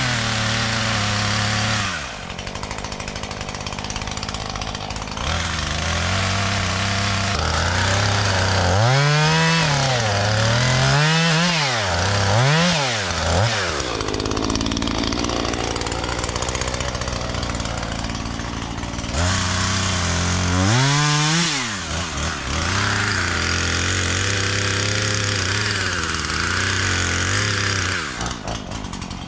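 Chainsaw engine running, idling steadily between repeated quick revs whose pitch rises and falls, in a run of several revs around the middle and again later.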